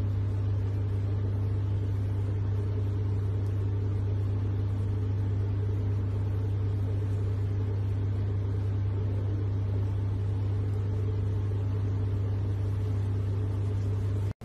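A steady, low-pitched hum that holds one pitch with a few overtones above it and does not change.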